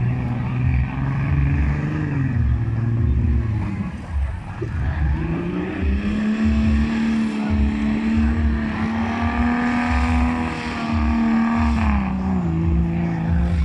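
Off-road 4x4 buggy's engine running hard on the track: the revs sag about three seconds in, climb again and hold high and steady for several seconds, then ease down near the end.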